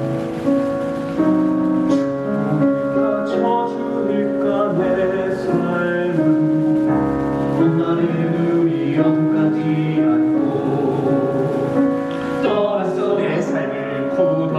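Musical-theatre song sung by male voices over live instrumental accompaniment.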